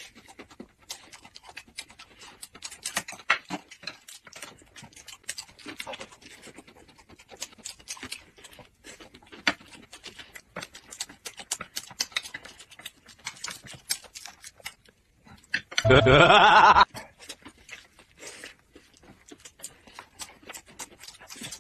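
Close-up eating sounds of two people biting and chewing thin pancake wraps filled with shredded vegetables: irregular wet mouth clicks and smacking. About 16 seconds in, a loud vocal sound lasts about a second, bending in pitch.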